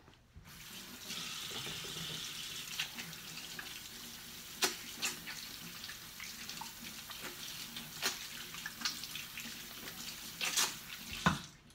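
Kitchen faucet running steadily into the sink during hand dishwashing, with a few sharp clinks of dishes being handled. The water comes on about half a second in and is shut off just before the end.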